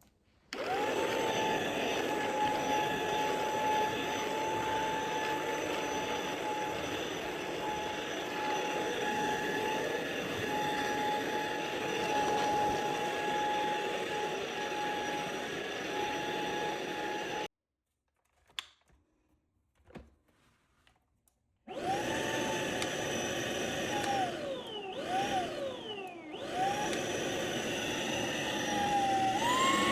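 Tineco Pure ONE S11 cordless stick vacuum running with a steady motor whine. It switches off for a few seconds, with only a couple of faint clicks, then starts again. Its pitch dips and swoops twice, then it steps up to a higher, louder whine near the end.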